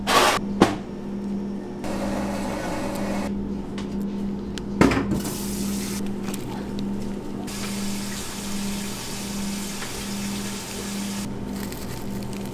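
Commercial kitchen background noise: a steady, evenly pulsing hum under a hiss, with sharp clatters at the start and again about five seconds in.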